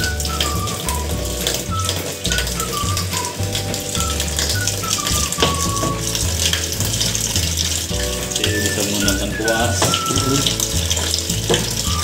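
Water running and splashing inside a washing machine tub while it is cleaned, over background music with a stepping bass line and a falling melody.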